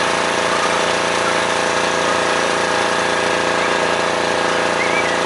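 An engine running steadily at one speed, a constant hum with a hiss over it.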